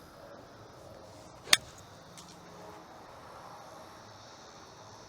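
A golf iron striking the ball: one sharp crack about a second and a half in. The ball is hit dead centre, a pure strike with the 5-iron. Faint, steady outdoor background around it.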